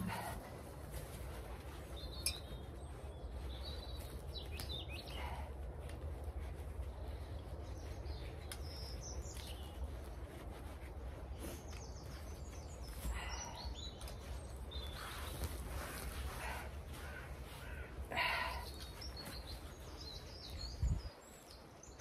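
Small birds chirping now and then over a steady low rumble, with a couple of brief louder noises midway and a low thump near the end.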